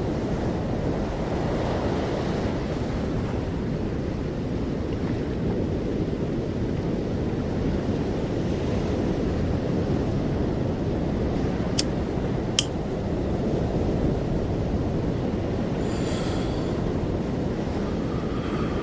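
Steady low rushing noise of wind blowing across the microphone outdoors. Two sharp clicks come a little past the middle, and a brief high hiss follows near the end.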